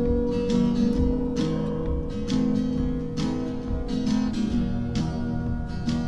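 Background music: an acoustic guitar strummed in a steady rhythm, its chords changing every second or so.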